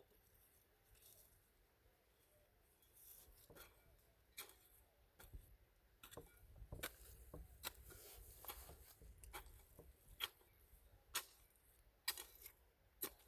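Faint, irregular clicks and scratches of dry soil being worked, a couple of sharper ticks among them, over near silence.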